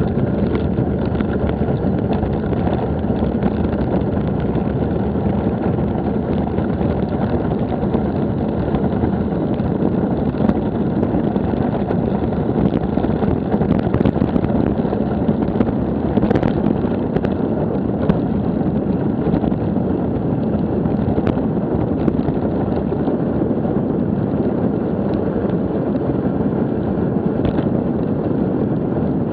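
Steady wind rumble on an action camera's microphone, mixed with the rolling noise of a bicycle being ridden.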